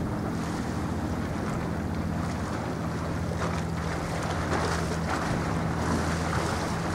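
Wind buffeting the microphone over choppy sea, with waves washing and a steady low engine drone underneath.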